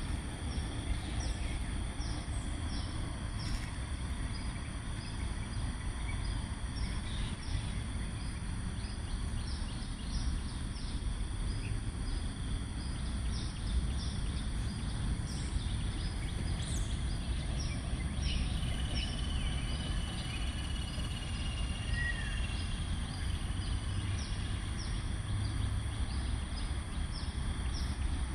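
Outdoor ambience: a run of short, high, falling chirping calls repeating about twice a second over a steady low rumble. A thin held whistle-like tone comes in about two-thirds of the way through and lasts a few seconds.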